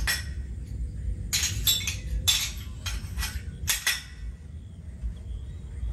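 A quick, uneven run of sharp, bright clinks of small hard objects, about nine in the first four seconds, over a steady low rumble.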